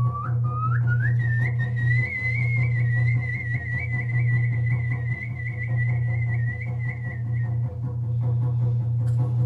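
A person whistling one long high note that climbs in steps over the first second or so, then holds with a slight waver before fading out near the end, over a steady low hum.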